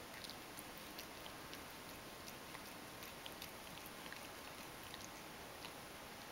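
Ragdoll cat licking its fur while grooming: faint, irregular little wet clicks of the tongue over a steady hiss.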